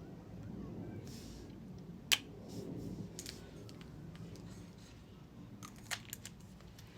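Lipstick tubes being handled: one sharp click about two seconds in, then scattered lighter clicks and taps, with a soft brief rustle about a second in.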